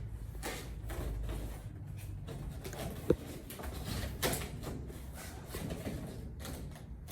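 Rustling, scraping and light knocking of ceiling tiles being handled and slid into a drop-ceiling grid, with one sharp click about three seconds in.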